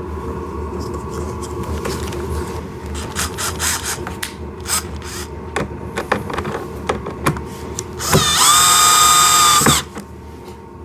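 Scattered clicks of screws and parts being handled, then about eight seconds in a power drill spins up with a quick rising whine, runs steadily for about a second and a half driving a screw, and stops.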